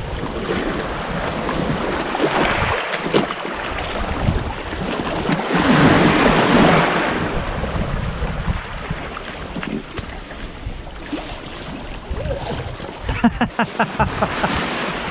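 Small sea surf washing in, with one wave surging up louder about six seconds in and wind buffeting the microphone. A quick run of small clicks comes near the end.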